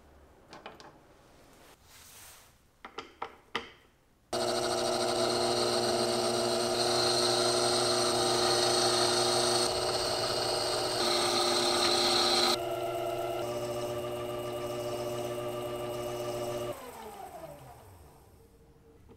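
A few light metal clicks, then about four seconds in a small metal lathe starts abruptly and runs with a steady whine as a boring bar cuts inside a spinning aluminium part. Near the end the motor is switched off and the whine falls in pitch as the spindle winds down.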